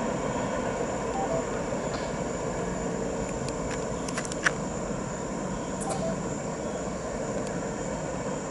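Norfolk Southern manifest freight train rolling past: a steady rumble, with a few sharp clicks about four seconds in, one louder than the rest.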